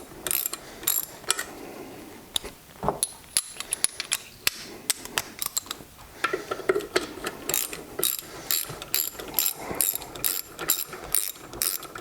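Hand socket ratchet clicking as bolts are backed out of a small mower engine: a few quick runs of clicks at first, a sparser stretch, then a steady fast run of about four to five clicks a second through the second half.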